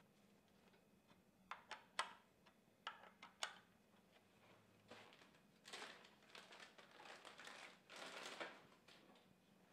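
A few sharp metallic clicks and taps as a hand tool works the bolts of an engine's camshaft sprocket, then a few seconds of rustling handling noise near the end.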